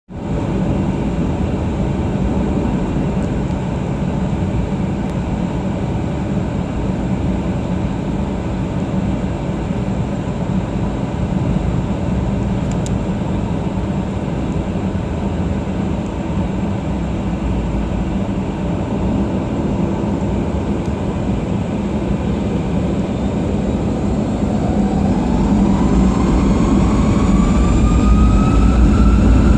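Cabin noise of a Boeing 737-700 with its CFM56-7B turbofan engines at low power: a steady rumble and hum. From about 24 seconds in, a whine rises in pitch and the noise grows louder as the engines spool up toward takeoff thrust.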